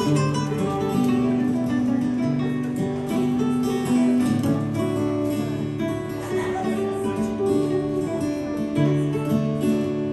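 An acoustic guitar and a classical nylon-string guitar playing together, with plucked and strummed chords, in an instrumental passage without singing.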